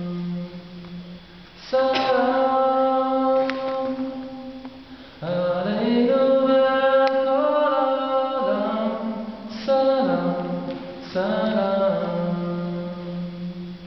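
A man singing alone without accompaniment in long held notes, in four phrases that each ring on and linger in the echo of a rock-cut cistern.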